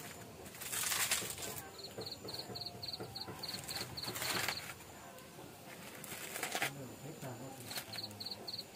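Insect chirping at night in an even pulsing rhythm of about four chirps a second, dropping out early and returning near the end. Over it come three loud bursts of rustling and snapping, about a second in, around four seconds and around six and a half seconds in, as leafy green stalks are broken by hand and dropped into a pot.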